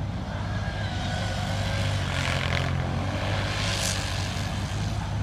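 Arctic Cat four-wheel-drive machine's engine running with a steady low drone as it is driven drifting through snow, with two brief hissing surges about two and four seconds in.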